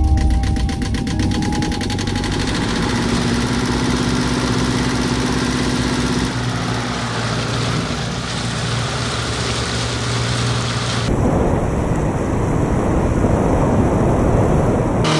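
Motorboat engine running steadily at speed, with the rush of the hull through the water. The sound shifts in character about eleven seconds in.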